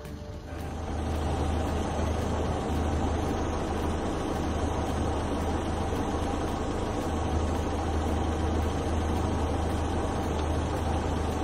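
Safari jeep's engine running steadily, a low hum with a rushing noise above it that swells in over the first second and then holds level.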